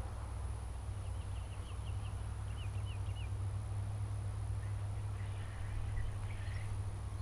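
A wild bird calling in two quick runs of short chirps, each run about a second long, over a steady low rumble of wind on the microphone.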